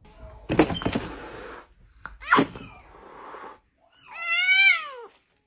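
Cat hissing and spitting in two sharp bursts, then a short yowl that falls in pitch near the end: an angry, defensive reaction to another cat at the window.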